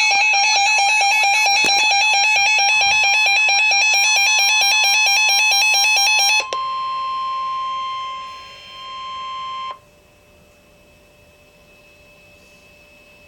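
A weather alert radio sounding for a severe thunderstorm warning. Its loud electronic alarm warbles in a fast repeating pattern and cuts off about six seconds in. The steady single-pitch NOAA Weather Radio warning alarm tone starts about three seconds in and carries on alone until about ten seconds in, followed by faint hiss.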